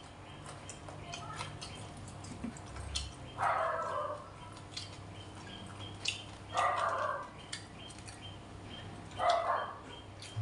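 An animal calling three times, about every three seconds, each call short, with light clicks of chopsticks and a spoon against bowls in between.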